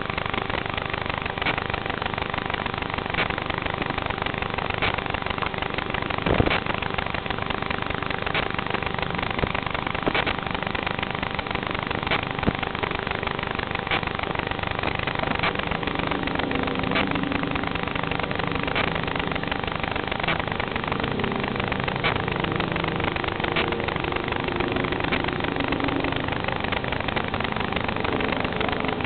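Steady static hiss from an FPV drone's video-link audio, with a few crackles, the loudest about six seconds in. Faint voices come through in the second half.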